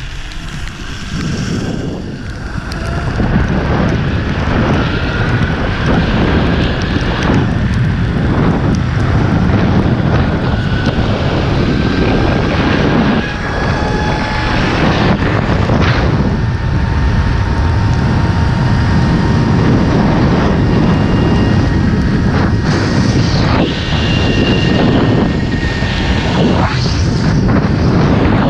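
Zipline trolley's pulleys running along the steel cable, a thin whine that climbs slowly in pitch as the rider gathers speed over roughly the first half, then holds steady, under heavy wind rumble buffeting the microphone.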